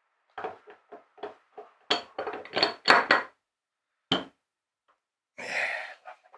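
Metal parts of a sailing winch clicking and knocking as the drum top and cap are fitted by hand, with one sharp knock about four seconds in. Near the end, a short scrape as a screwdriver is set down on the plywood bench.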